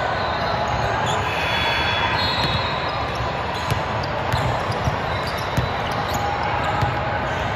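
Gymnasium game noise: a steady hum of crowd and player chatter, with a few short sharp ball impacts in the middle.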